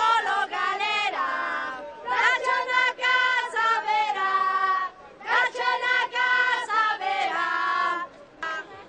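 Protesters chanting a slogan, raised voices held on long notes in three phrases with short breaks between them.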